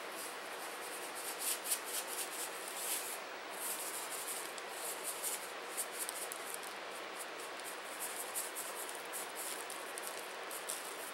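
Kosher salt shaken from a shaker onto a raw steak: many quick, irregular rattling shakes over a steady hiss.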